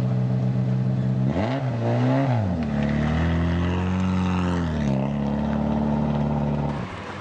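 Rally car engine idling, blipped once about a second and a half in, then revving up and back down as the car pulls away, settling to a steady note that drops off near the end.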